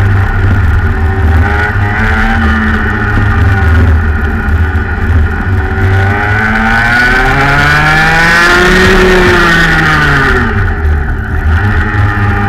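Rotax Max 125cc two-stroke kart engine heard onboard at racing speed. Its pitch wavers through a bend, then climbs steadily as the kart accelerates down a straight, peaks about nine seconds in, and drops as the driver lifts for the next corner.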